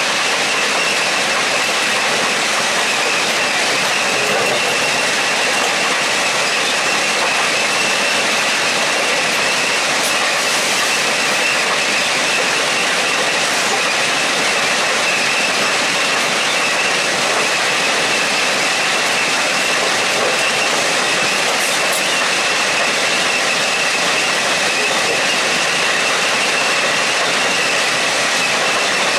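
Plasser & Theurer RUS 1000 S track renewal train at work laying new concrete sleepers: a steady, loud din of its machinery with a high whine running through it.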